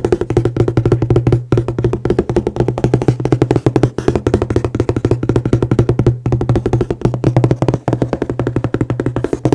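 Very fast, continuous tapping on a hollow, resonant object, many taps a second, with a steady drum-like ring beneath the taps.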